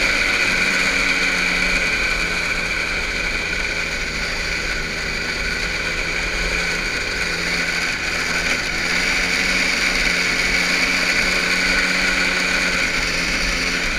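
Small engine running with a steady drone, its pitch shifting slightly a couple of times as the engine speed changes.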